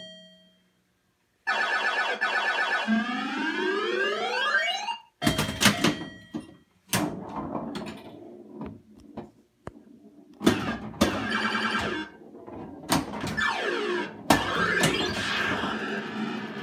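Stern Muhammad Ali pinball machine's electronic sound effects: tones with pitch sweeps rising and falling start about a second and a half in, and several sharp mechanical clacks break in from the middle on.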